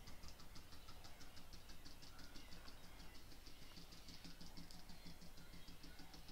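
Faint, rapid light tapping on a silicone candle-jar mould as concrete mix is poured into it, about seven taps a second, done to knock air bubbles out of the logo.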